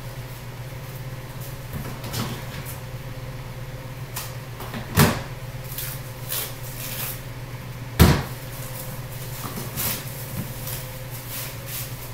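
Knocks and thuds of sofa parts being lifted out of their shipping box and set down, with two sharp, louder knocks about five and eight seconds in, over a steady low hum.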